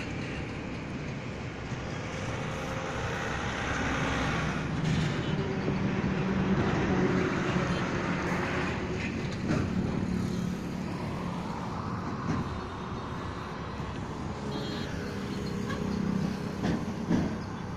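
Expressway traffic passing at high speed, seen from above: a steady rush of tyre and engine noise that swells as vehicles go by, loudest about a third of the way in and again near the end, with a low engine drone underneath.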